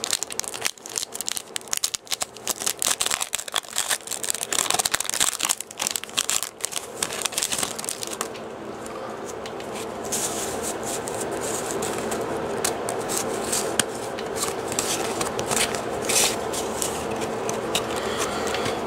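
Pokémon booster pack's foil wrapper crinkling and tearing as it is opened and the cards are handled. From about halfway through, a steady buzzing hum runs underneath the handling.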